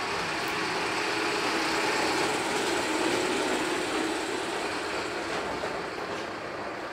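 A loud passing vehicle: a steady noise with a low engine hum that swells to its loudest two to three seconds in, then slowly fades as it goes by.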